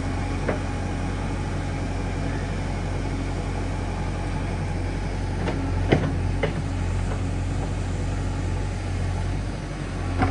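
JCB 3DX backhoe loader's diesel engine running steadily as the backhoe arm digs soil. A few sharp knocks from the bucket and arm are heard, the loudest about six seconds in.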